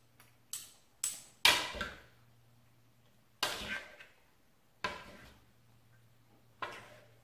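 Metal utensils knocking and scraping against an orange enamelled bowl as oiled spiralized potato and zucchini strands are tossed and mixed. There are a few quick knocks in the first second or so, the loudest about a second and a half in, then one roughly every second and a half, over a faint steady hum.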